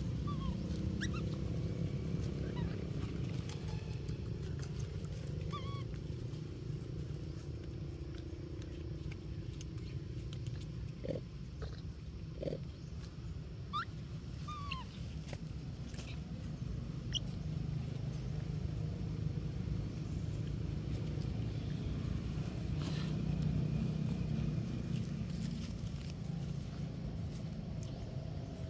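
Steady low outdoor rumble, with a few brief high chirps from animals scattered through it and a couple of soft knocks in the middle.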